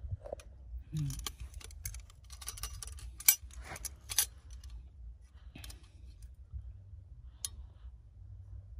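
Dry grass and stubble rustling and crackling in scattered bursts, with sharp clicks. The loudest click comes about three seconds in, and there are a few single clicks later on. A low rumble runs underneath.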